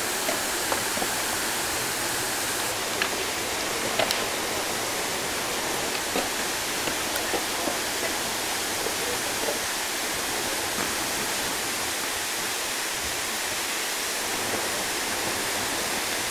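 Steady rush of water from a large park fountain, its falling spray splashing into the basin.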